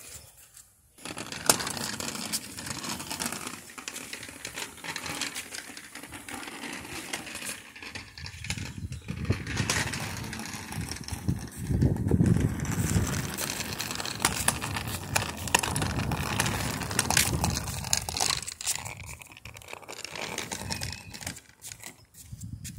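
Close handling noise: rustling and rubbing with many scattered clicks and knocks, as the seat is worked on and the phone moves, with a louder, deeper rubbing stretch about halfway through.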